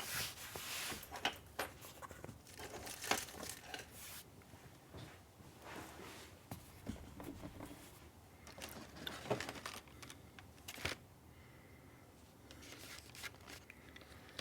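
Faint rustling and crinkling of packaging being handled, with scattered light clicks and knocks.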